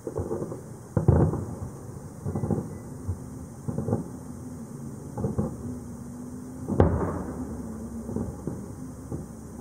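Aerial firework shells bursting: about six booms, each trailing into a rolling echo, the loudest about seven seconds in.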